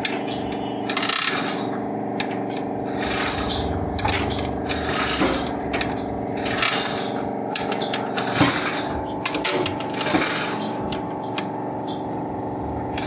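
Hand tools scraping, clinking and tapping on metal in irregular short strokes, over a steady low hum.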